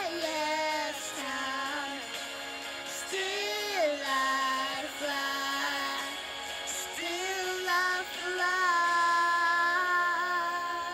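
A song with a high solo voice singing long, held notes that slide between pitches over music.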